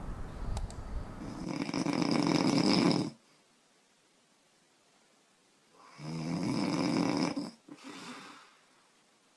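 A woman snoring in her sleep: a loud snore that ends about three seconds in, a pause of about three seconds, then another snore with a short, fainter one right after it.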